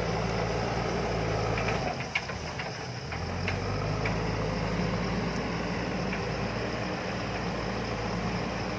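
JCB backhoe loader's diesel engine running steadily, its low note dropping away for about a second partway through, with a few sharp knocks around then.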